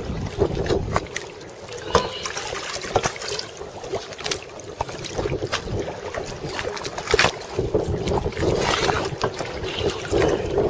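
Seawater sloshing and splashing around a handheld camera that moves in and out of the surface, with irregular sharp knocks and splashes throughout.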